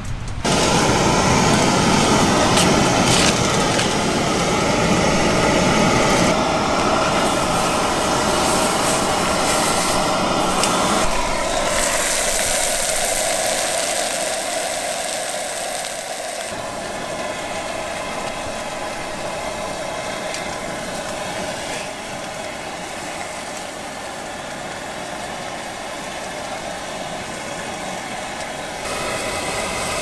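Portable gas camp stove burners running with a steady roar, with meat sizzling in a frying pan; a brighter, hissier stretch in the middle, and the sound shifts abruptly several times.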